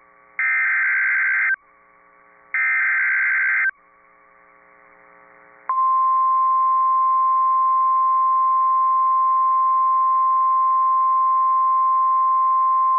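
NOAA Weather Radio alert signal: two short data bursts of the SAME digital header, each about a second long and a second apart. Then, a little under six seconds in, the steady single-pitch 1050 Hz warning alarm tone starts and holds, announcing a warning message to follow.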